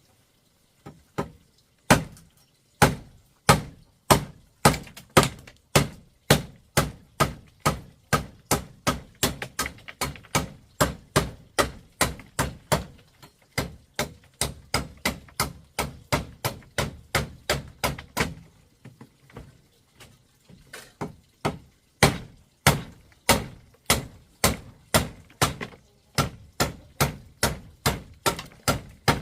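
Hammer striking again and again in a steady rhythm of about two hard blows a second, with a short break about two thirds of the way through.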